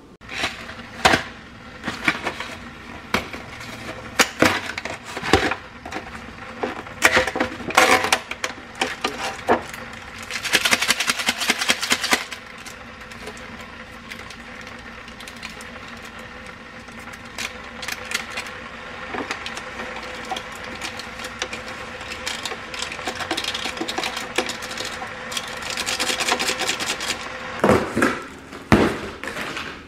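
Household handling sounds: sharp clicks, knocks and clatters of hard objects being picked up and set down, with a few seconds of rustling about eleven seconds in. Near the end, two heavier knocks come as a cardboard parcel box is pulled open.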